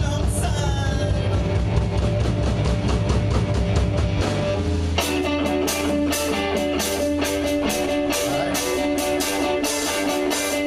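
Live rock band playing an instrumental passage with guitar and drum kit and no singing. About halfway through, the heavy bass drops out and the cymbals come forward, beating steadily under held guitar notes.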